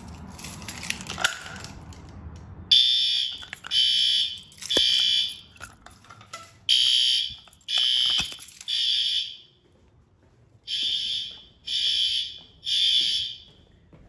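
A few small clicks, then, a little under three seconds in, fire alarm horns start sounding in the temporal-three evacuation pattern: three loud, high-pitched blasts, a pause, three more, repeating. The building's fire alarm is in alarm after the Notifier pull station is activated.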